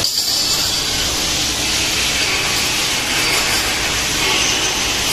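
Metal-forming machinery running in a factory, a steady loud hissing noise with no clear tone or beat.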